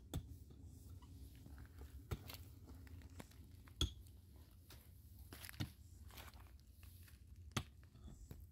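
Five sharp knocks, about two seconds apart, over a low steady background.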